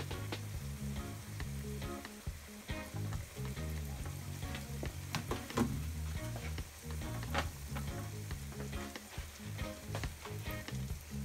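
Flour-dredged eggplant slices shallow-frying in hot oil in a pan: a steady sizzle with frequent sharp crackles and pops.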